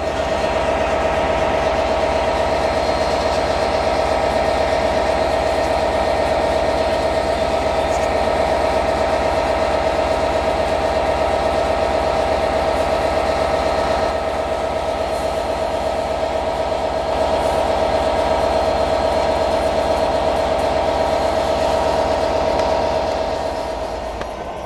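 Class 67 diesel-electric locomotive running as it creeps along the platform, its engine giving a steady loud whine over a low rumble. It eases off near the end.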